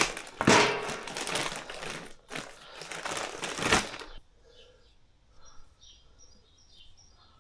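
Scouring pad scrubbing an aluminium gearbox sealing face, a rough back-and-forth rubbing that stops about four seconds in. Faint bird chirps follow.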